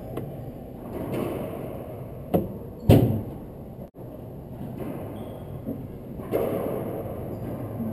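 Racquetball play: the hollow rubber ball smacking off the racket and the court walls, two sharp hits about half a second apart a couple of seconds in, the second the loudest and ringing briefly in the enclosed court. Softer hits and bounces follow later.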